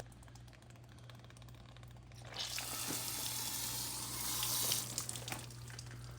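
Water rushing out hard for about two and a half seconds, starting a couple of seconds in, over a steady low mechanical hum.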